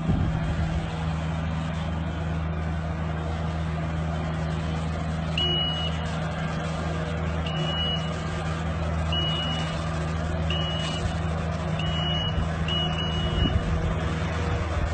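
Kubota compact loader's diesel engine running steadily, with a high-pitched back-up alarm sounding short single beeps at uneven intervals from about a third of the way in, about seven in all.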